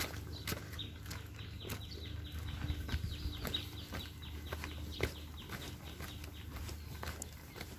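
Footsteps on a brick path, with a bird giving a fast run of short falling chirps, about ten a second, that stops about five seconds in.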